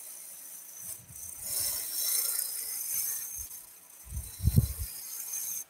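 Roughing gouge cutting a spinning wooden blank on a lathe: a steady high hiss of shavings coming off the wood, easing at times, with a couple of dull low thumps about four seconds in.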